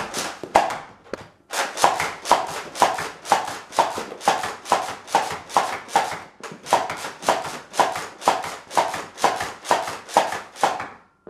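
Nerf Rival Hades spring-powered pump-action blaster slam-firing foam balls, about two shots a second, each a loud clack of the pump being racked and the spring releasing. The string pauses briefly about a second in, runs on steadily, and stops shortly before the end.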